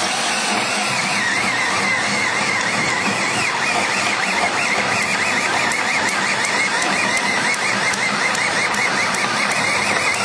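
Power drill turning a ship auger bit, boring through framing lumber in a SIP wall to open a wire chase. The motor runs steadily under load, with a wavering squeal as the bit cuts the wood.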